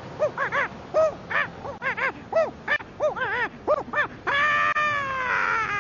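Monkey-style hooting: a quick string of short hoots, each rising and falling in pitch, then a long drawn-out call starting about four seconds in whose pitch slowly sinks.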